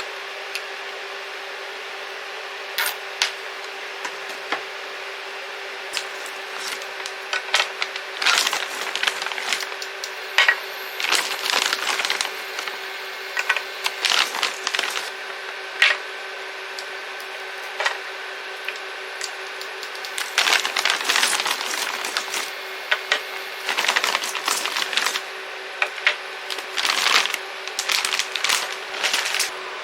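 Irregular light clicks, taps and clatter of small hard objects being handled, in clusters, over a steady low hum.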